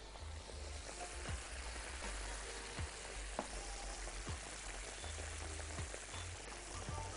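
Breaded beef cutlets frying in medium-hot oil in a pan: a steady sizzle with scattered pops and crackles.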